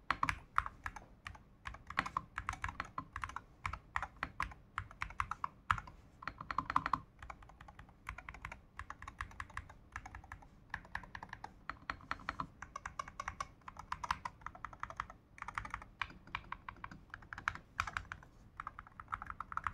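Typing on a Monsgeek FUN60 Pro Hall-effect keyboard, its linear magnetic switches and PBT double-shot keycaps clacking in quick runs of keystrokes with short pauses between them.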